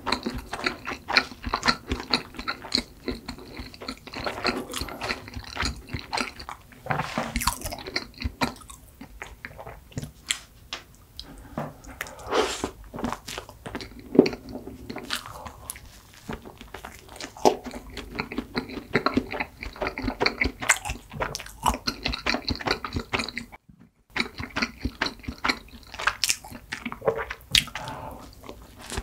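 Close-miked chewing of soft cream-filled bread: wet mouth smacks and squishes, with the soft tearing and biting of the bread. The sound cuts out for a moment about two-thirds through.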